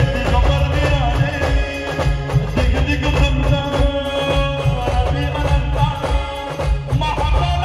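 Indian brass band playing a film-style tune: a held wind-instrument melody over a heavy, steady drum beat.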